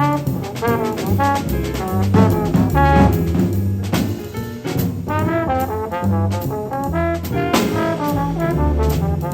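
Small jazz group playing a bebop blues: a quick trombone line over walking bass and drums with ride cymbal.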